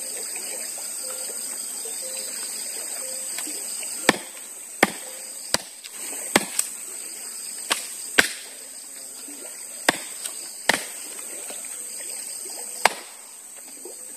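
About ten sharp chopping strikes at an uneven pace, starting about four seconds in, over the steady rush of river water: wood being chopped for firewood.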